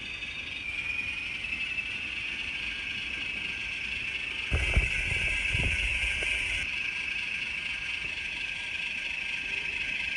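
N scale locomotive's DCC sound decoder playing a diesel prime-mover sound through its tiny speaker: a steady engine run, thin and concentrated in the upper midrange. A few short knocks come about halfway through.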